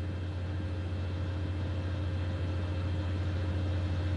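A steady low hum with faint steady tones above it, slowly growing a little louder.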